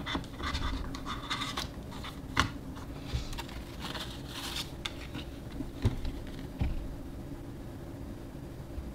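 Paper and cardboard rustling and sliding as a hardback photobook and its printed cards are handled, with a few sharp taps of the items being set down, the loudest about two and a half seconds in and another near six seconds.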